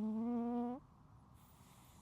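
A cat snoring: one buzzing, steady-pitched snore lasting about a second, then a soft airy breath near the end.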